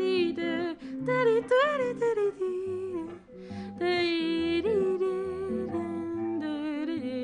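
A woman singing wordlessly, humming and drawing out vowel sounds with sliding pitch, over sustained instrumental accompaniment as part of an original song.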